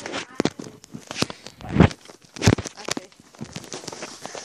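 Handling noise from the recording device being moved with its lens covered: irregular knocks and rustling scuffs against the microphone, the loudest two about two and two and a half seconds in.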